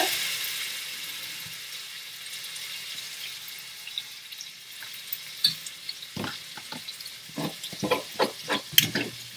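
Ground turkey sizzling in a hot cast iron skillet just after water is poured on, the hiss dying down over the first couple of seconds into a steady sizzle. From about six seconds in, a spatula scrapes and knocks against the pan as the meat is stirred.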